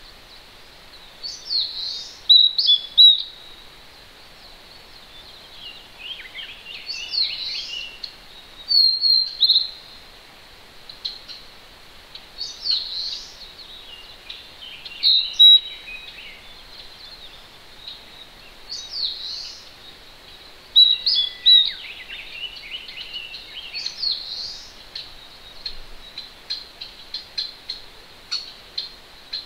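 Wild songbirds singing short, varied phrases of whistled and gliding notes about every three to six seconds, over the steady hiss of a distant mountain stream.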